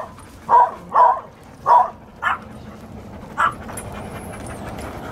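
A dog barking: about six short barks in the first three and a half seconds, the last two fainter.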